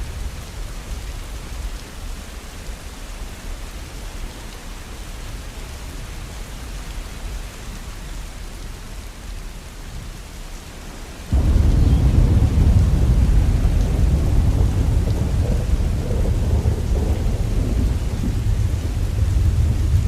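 Steady rain, then a little over halfway a sudden, loud, low rumble of thunder sets in and keeps going over the rain.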